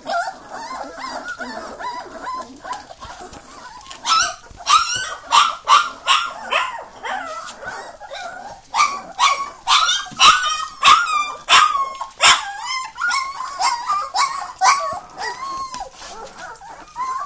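Three-week-old Fila Brasileiro puppies whimpering and yelping: short, high, wavering cries, with quick runs of yelps about four seconds in and again from about nine to twelve seconds.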